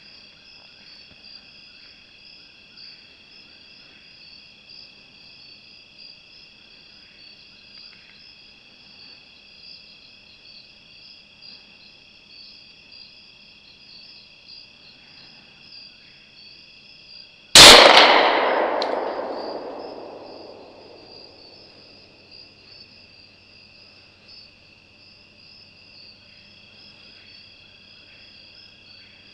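A single rifle shot, very loud and sudden, its echo rolling away over about three seconds, with a faint sharp tick about a second after it. Behind it, a steady chorus of crickets and other night insects.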